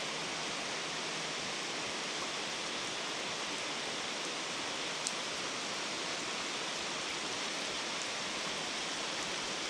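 Steady rain falling on the river surface, an even hiss at a constant level.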